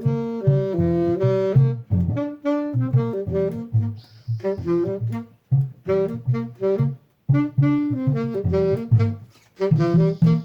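Jazzy instrumental music with a saxophone playing a lead melody in quick, changing notes over a rhythm accompaniment.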